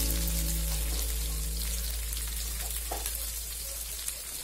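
Chopped onions, green chillies and ginger sizzling in hot oil with cumin seeds in a frying pan: a steady frying hiss. A held musical chord fades out during the first second or two.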